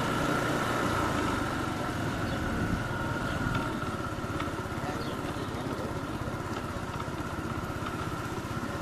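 Motor scooter engine running at low speed, then settling quieter about three to four seconds in, with a steady high whine throughout.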